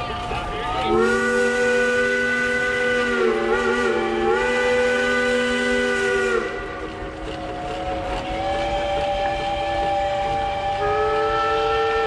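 Train-type chime steam whistle on an antique steam traction engine, sounding a chord of several notes. A long loud blast runs from about a second in to about six seconds, its pitch wavering in the middle as the valve is worked; softer whistle chords carry on after it, and another chord comes in near the end.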